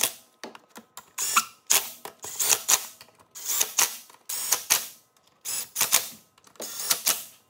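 Cordless power tool running bolts into an ATV engine's side cover in a string of short bursts, roughly one a second, each with a rising motor whine and rattling as the bolt is driven.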